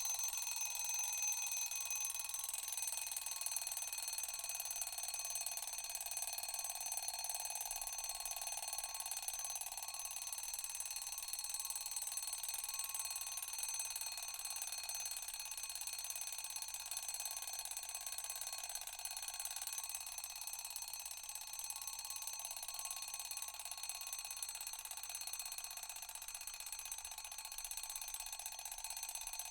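Mechanical alarm clock's bell ringing in one unbroken, high-pitched ring that eases off a little toward the end.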